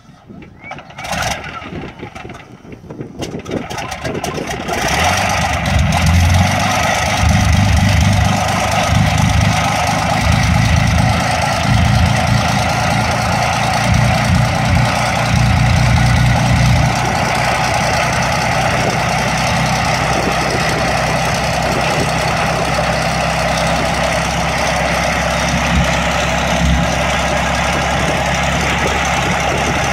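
One of a de Havilland Mosquito's Rolls-Royce Merlin V12 engines being cranked over and primed, coughing a few times before it catches about four to five seconds in. It runs rough and uneven for a while, then settles into a steadier idle.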